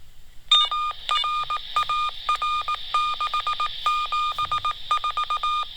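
Morse code tone received by a walkie-talkie and played back from a phone recording. A single beeping tone starts about half a second in and keys on and off in long dashes and quick runs of short dots, over a steady radio hiss.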